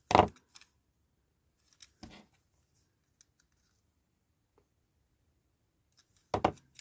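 Three short scrapes of a small metal hand tool against a die-cast toy's metal baseplate: loud at the start, fainter about two seconds in, loud again near the end.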